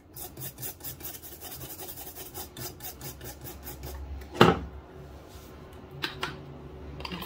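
Toothbrush scrubbing the solder side of a motherboard with alcohol, quick back-and-forth bristle strokes several a second, cleaning off a freshly soldered trace repair. The strokes stop at one loud knock a little past the middle, followed by a few fainter scrapes.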